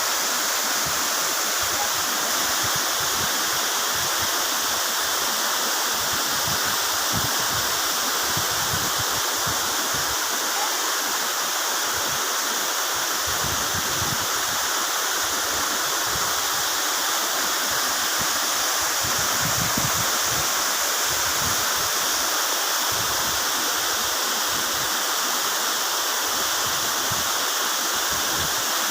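Waterfall's falling water making a steady rushing roar.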